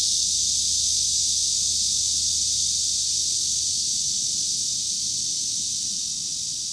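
Cicadas singing, Cryptotympana atrata and large brown cicadas (Graptopsaltria nigrofuscata): a steady, continuous high-pitched hiss that eases off slightly toward the end.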